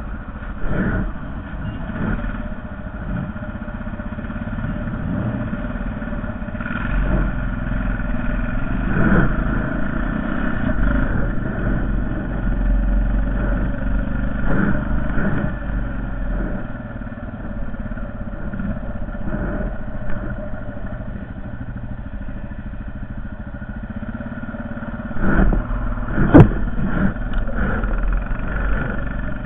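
Honda Foreman 450 ATV engine running steadily while plowing snow, its low rumble rising and falling with the throttle. A few sudden knocks come through, the loudest near the end.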